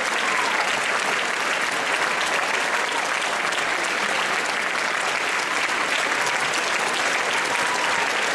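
A large audience applauding steadily, many hands clapping in a dense, unbroken patter.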